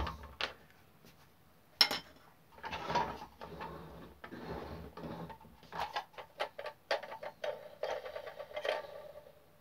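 Handling noise from a 16mm-scale model locomotive tender and small hand tools on a cutting mat. There is a sharp click about two seconds in, then a few seconds of rustling and scraping as the tender is slid and turned over, then a run of light, irregular clicks and knocks.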